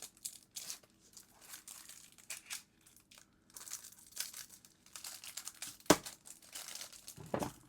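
Packaging rustling and crinkling as it is handled, in irregular bursts, with one sharp knock about six seconds in.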